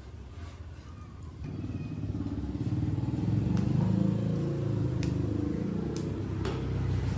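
A vehicle engine running, getting louder about a second and a half in and staying loud, a low, wavering hum. A few sharp metal clinks of a pan lid and ladle sound over it.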